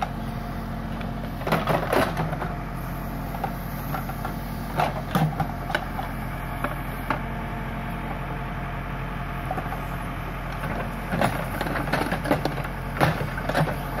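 Case backhoe loader's diesel engine running steadily while the backhoe arm works, with short knocks and scrapes now and then from the bucket tearing brush and mud out of the ditch.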